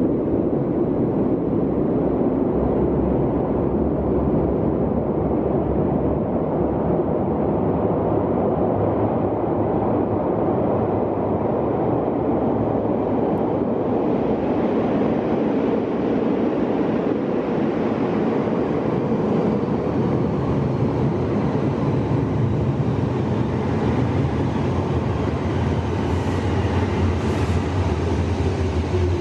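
Nagano Electric Railway electric train rumbling through the underground tunnel as it approaches the platform: a steady low rumble, with a hiss that grows from about halfway and faint high wheel squeals in the last few seconds as it draws in.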